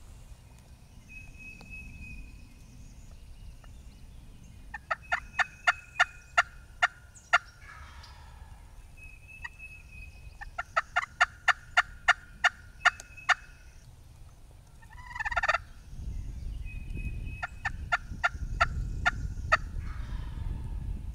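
Wild turkeys calling: three runs of about ten evenly spaced yelps, each followed by a short rattling gobble, the loudest gobble about fifteen seconds in.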